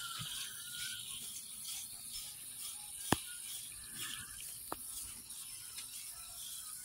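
Two sharp clicks about a second and a half apart, the first the louder, over faint background noise.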